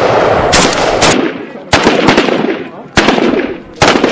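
Rifle gunfire in a firefight: loud single shots about a second apart, each with a long echoing tail.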